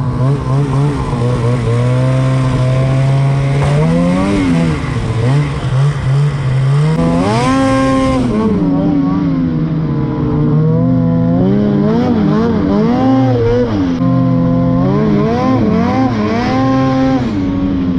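Snowmobile engine running under the rider, its pitch rising and falling over and over as the throttle is worked. A sharp rev-up about seven seconds in is the highest point, then it drops back.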